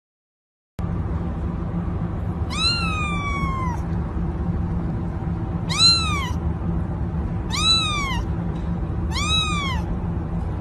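Kitten meowing four times: one long call with a falling pitch, then three short calls that rise and fall, over a steady low hum.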